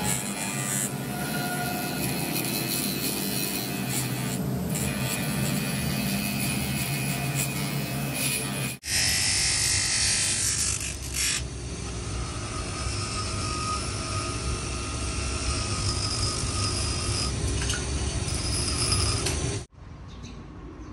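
A power tool running steadily, in three cut-together stretches that change abruptly about nine seconds in and again near the end.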